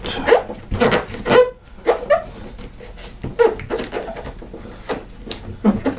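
Aluminium foil HVAC tape crinkling and rustling as it is folded over and pressed down by hand. It comes as a series of irregular crackles, some sharper than others.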